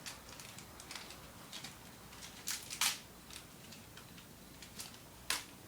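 Foil booster-pack wrapper being torn open and crinkled by hand: irregular crackles and tears, the loudest a pair of sharp rips near the middle and another near the end.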